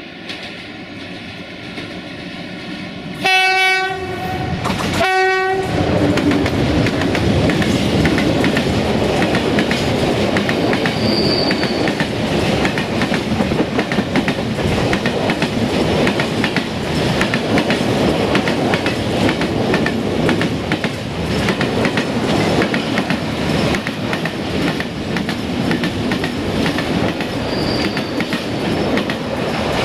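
Electroputere LDE2100 (060-DA) diesel-electric locomotive with its Sulzer engine running as it approaches, sounding its horn twice, a longer blast about three seconds in and a short one about five seconds in. Then a long train of silo tank wagons passes close by, rumbling and clattering steadily over the rail joints, with two brief high wheel squeals.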